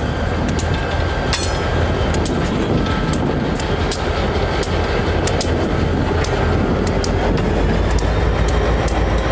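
Dubbed-in freight train sound: a steady low rumble with irregular sharp clicks of wheels over rail joints, about two a second.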